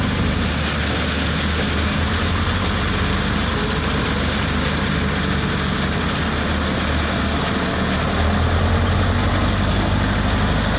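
Caterpillar 966F wheel loader's diesel engine working under load, a steady low drone that grows a little louder about eight seconds in as the machine comes close.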